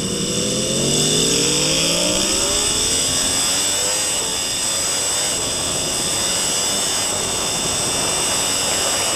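Onboard motorcycle engine revving up under hard acceleration out of a slow corner. Wind noise on the helmet or bike-mounted microphone takes over as speed climbs past 180 km/h through the gears.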